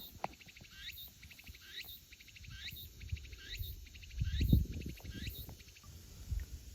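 A cicada calling over and over, about once a second: each phrase is a quick run of ticks followed by a rising note. Low thumps on the microphone come and go, the loudest about four and a half seconds in.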